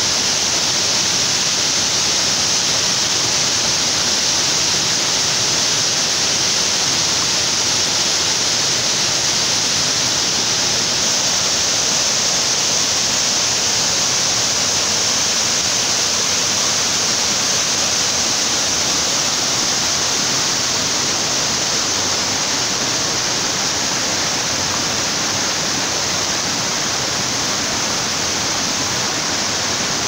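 Waterfall and the shallow rocky stream below it rushing steadily: a loud, even hiss of falling and running water that grows slightly fainter in the second half.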